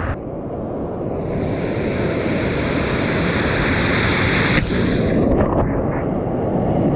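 Ocean surf and whitewater rushing around an action camera held at water level, with wind buffeting the microphone. A few sudden splashes a little past the middle.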